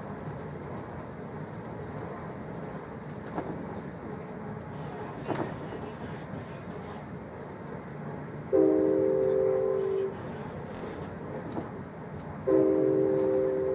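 An Amtrak Capitol Corridor train running with a steady rumble, heard from inside a passenger car. The locomotive's horn sounds twice: a long chord of several notes about two-thirds of the way through, then a second long blast near the end.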